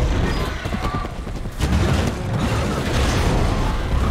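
Loud cinematic soundtrack of action-film effects: dense noise with clicks and crackles over heavy low bass, with music under it.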